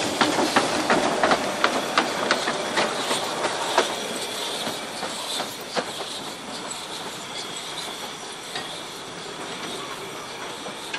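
Narrow-gauge steam locomotive rolling slowly past close by with a steam hiss, its wheels clicking over rail joints about three times a second, then fading as it moves away.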